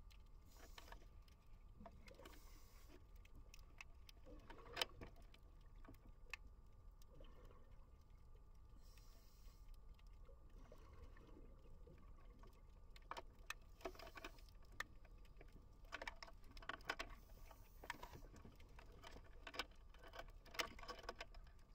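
Near silence underwater: a faint low rumble with scattered sharp clicks and crackles. There is one louder click about five seconds in, and the clicking comes thicker in the last eight seconds.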